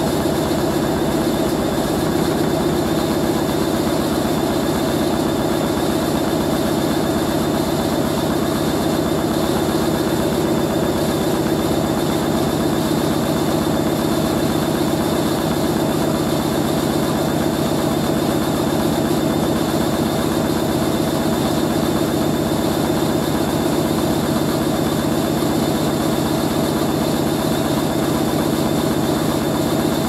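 Hoover A3060 Electronic 1100 front-loading washing machine running mid-cycle with water in the drum: a steady mechanical hum carrying several constant tones, unchanging throughout.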